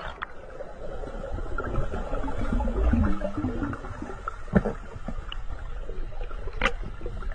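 Muffled underwater water noise, a low rumble and gurgling, as a dog swims down and back up under the surface, with a few sharp clicks.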